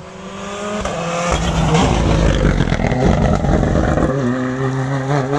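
Rally car approaching at speed and passing close by, loudest as it goes past between about one and four seconds in, then its engine holding a steady note as it heads away into a bend.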